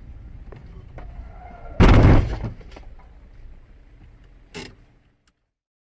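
Car running off the road into a metal roadside guardrail: a low driving rumble, then one loud impact lasting about half a second, about two seconds in. A second, shorter bang follows near the end before the sound cuts off.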